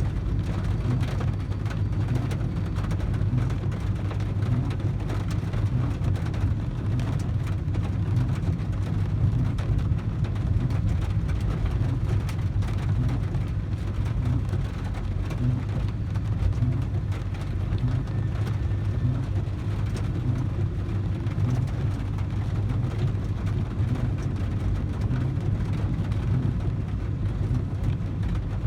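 Heavy rain falling on a car's roof and windows, heard from inside the cabin as a dense, steady patter over a constant low drone.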